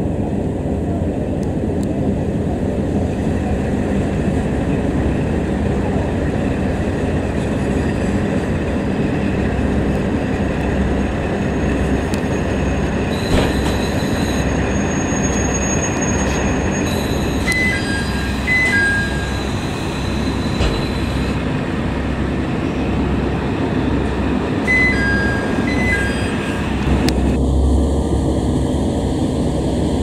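Inside a KiHa 40 diesel railcar: the diesel engine's low, rhythmic throb under steady rail and running noise. In the second half come thin high-pitched wheel squeals and a few short high tones.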